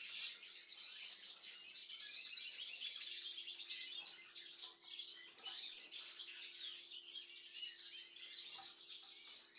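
Small cage finches chirping and twittering continuously with many quick, high-pitched calls, over a faint steady hum.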